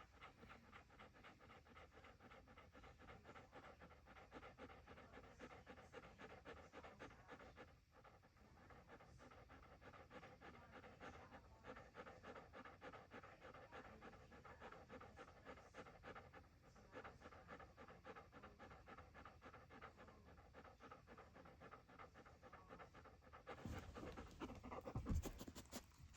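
A dog panting in quick, even breaths, faint throughout. Near the end a louder burst of noise comes close to the microphone.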